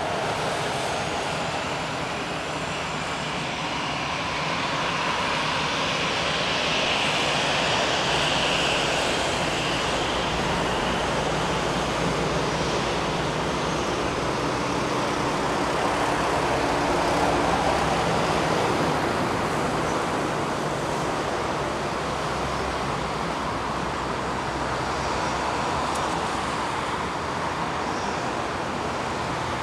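An Airbus A320-214's two CFM56-5B jet engines running at taxi idle as the airliner taxis past after landing: a steady rush of engine noise that swells a little twice.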